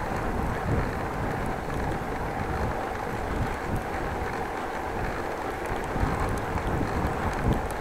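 Steady rush of wind on the microphone and tyre noise from a bicycle riding on a wet street, with a few faint ticks near the end.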